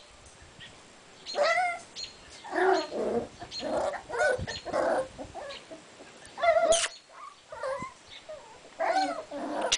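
Bichon Frisé puppies yipping and whining while they play, in a string of short, bending, high-pitched calls about one a second.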